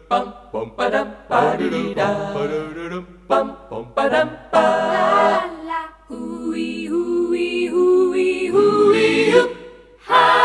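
A cappella vocal jingle: several voices sing in harmony with no instruments. Short clipped phrases come first, then long held chords, and it closes with a loud final note near the end.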